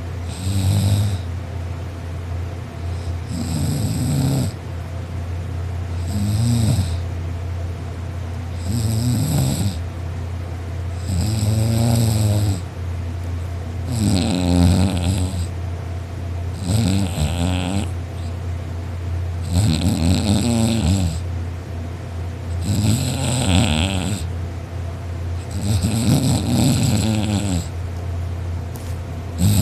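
A person snoring loudly in sleep, one snore about every two and a half to three seconds, over a steady low hum.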